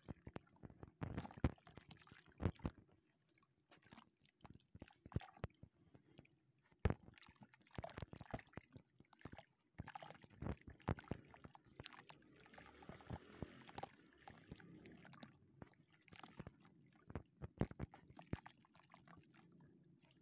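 A dry, chalky lump crumbled and crushed by hand over a basin of muddy water: irregular crunching and crackling, with crumbs and powder falling into the water, busiest about two-thirds of the way through.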